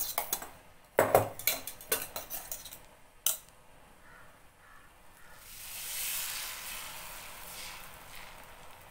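A metal spoon clatters rapidly against a bowl, ending with a sharp knock about three seconds in. Then a sizzle rises and slowly fades as frothy beaten egg is poured into melted butter in a hot nonstick frying pan.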